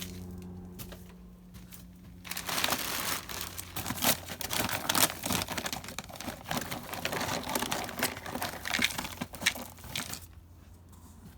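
Plastic food packaging crinkling and rustling as it is handled and opened, starting about two seconds in and running for some eight seconds with many sharp crackles.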